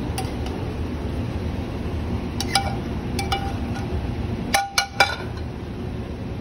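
Metal tongs clinking against a sauté pan and a ceramic plate as food is scraped out, with a few ringing clinks and then three louder clangs just before five seconds in, as the pan and tongs go back on the gas range. A steady ventilation hum runs underneath.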